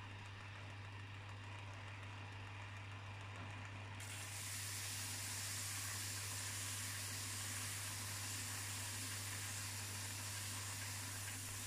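Belt sander running with a steady low hum; about four seconds in, a round metal part is pressed flat against its worn 60-grit cloth belt and a loud, high sanding hiss sets in and carries on as the metal is polished.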